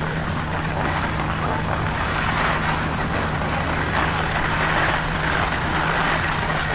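Skis sliding and turning on packed snow: a steady rushing hiss mixed with wind on the microphone, over a low steady hum.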